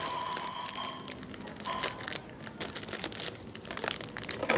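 A small plastic ingredient sachet crinkling and crackling as it is handled and opened, with irregular small clicks.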